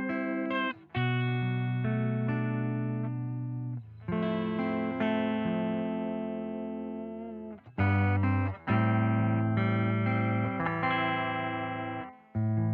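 Les Paul-copy electric guitar playing chords. Each chord is struck and left to ring for a few seconds, with short breaks between them.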